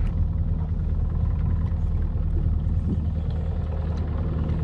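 Evinrude 115 outboard motor idling, a steady low hum.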